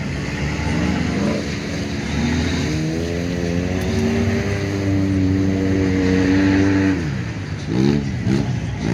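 Off-road vehicle engine revving up over a few seconds and held at high revs, then dropping off sharply about seven seconds in. A few quick throttle blips follow, then it revs up again.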